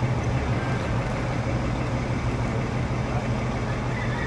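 A vehicle engine idling with a steady low hum.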